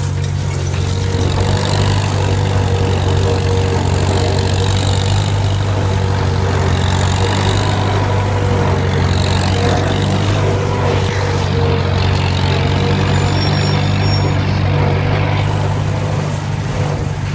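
Farmall M tractor's four-cylinder engine running steadily while pulling a wheel hay rake across a field, a constant low drone with no change in speed.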